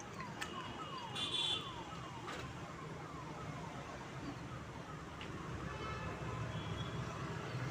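An alarm chirping in the background: a short falling tone repeated evenly about twice a second, stopping about three and a half seconds in.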